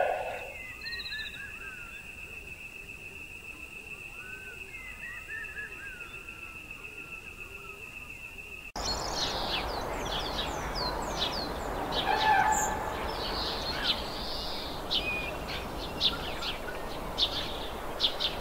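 Birds chirping over a steady high-pitched tone. About halfway through, the sound changes abruptly to a louder, noisier outdoor background with many quick chirps and calls.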